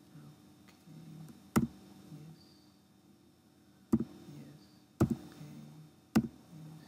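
Four sharp keyboard key clicks, spaced about one to two seconds apart: the Enter key being pressed to accept default answers at a software installer's prompts.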